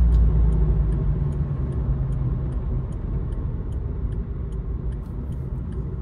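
Car engine and tyre rumble heard from inside the cabin, loudest at first and easing off as the car slows through a turn. Over it, a turn-signal indicator ticks about twice a second.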